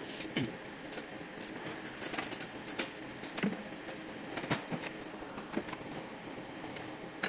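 Irregular light clicks, knocks and metallic clinks of hands and tools working on parts inside a van's engine bay.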